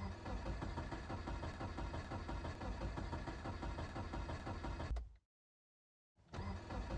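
Car engine cranking on the starter without catching, a cold engine that won't start. The cranking stops dead after about five seconds, and another cranking attempt begins about a second later.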